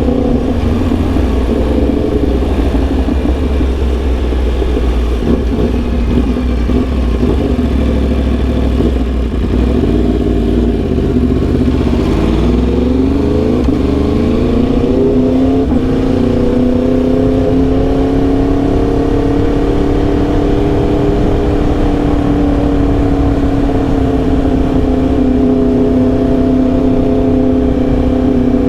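2021 Yamaha R1M's crossplane inline-four engine running under way. The engine note dips about twelve seconds in, then climbs for a few seconds as the bike accelerates. After that it holds a steady cruising note that eases slightly lower toward the end.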